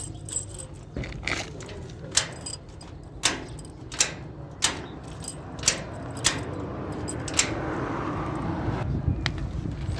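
A series of sharp clicks and knocks, roughly one or two a second, with a rushing noise swelling and fading in the last few seconds.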